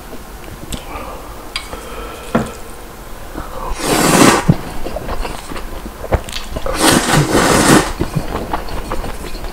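A person slurping thick Neoguri ramen noodles from a bowl in two long, loud slurps, about four and seven seconds in, with light clicks and taps before them.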